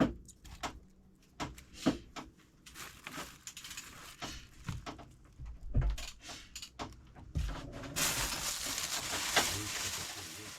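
Clinks and knocks of metal hand tools working on a car engine, then a steady hiss that starts about eight seconds in.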